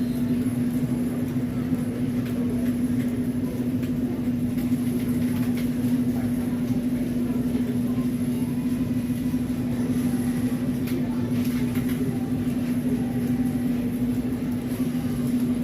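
Steady mechanical hum with one constant low tone over a rumble, unchanging throughout.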